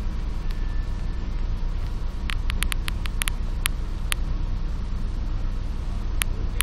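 Steady low hum inside an EN57 electric multiple unit standing at a platform. A quick run of sharp clicks comes about two to four seconds in, and a single click near the end.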